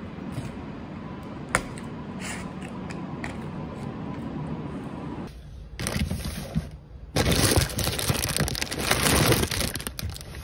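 Crinkling and crackling of plastic instant-noodle packets being rummaged through and handled, loud and continuous for about three seconds in the second half. Before it there is a quiet room with a few faint clicks and a short scrape.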